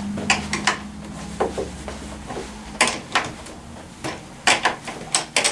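Sharp metal clicks and clinks of a 14 mm wrench on a scooter mirror's mounting nut, coming in short irregular groups as the nut is tightened down.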